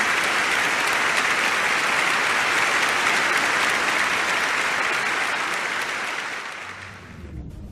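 Audience clapping at the end of a live song, a dense steady patter that fades away about six to seven seconds in.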